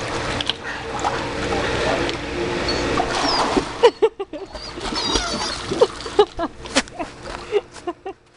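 A dog swimming in a pool, its paddling throwing up a steady splashing of water. About four seconds in the splashing turns quieter and broken up, and birds chirp.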